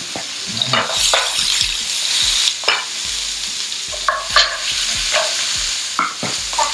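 Sliced zucchini, squash and red peppers sizzling as they sauté in oil in a frying pan, with repeated short clacks and scrapes of metal tongs stirring them against the pan.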